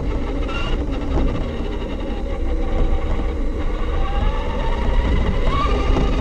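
Losi 22S-SCT radio-controlled short course truck driving, heard from a camera mounted on its body: its electric motor and gears whine, gliding up and down in pitch with the throttle, over a steady rumble from the ride. Near the end the whine rises as the truck speeds up.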